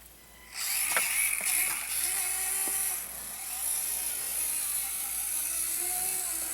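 Axial SCX24 micro RC crawler's small electric motor and geared drivetrain whirring under throttle, starting about half a second in with a steady high-pitched whine and a faint rising and falling tone.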